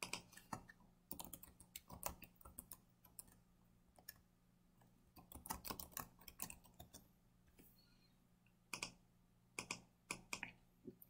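Faint computer keyboard typing and mouse clicks: scattered short clicks, bunched about one to three seconds in and again about five to seven seconds in, with a few more near the end.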